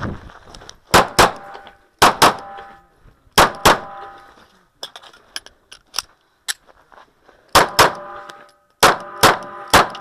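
Handgun shots fired in quick pairs: six, then a pause of about four seconds with small clicks of handling, then five more. A short ringing follows several of the shots.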